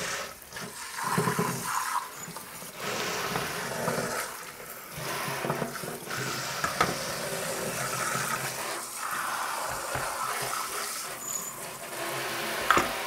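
Kitchen tap's pull-out spray head running in its multi-stream spray setting, water splashing over stainless steel egg-poaching cups and into a stainless steel sink as the soap is rinsed off, with a few brief knocks.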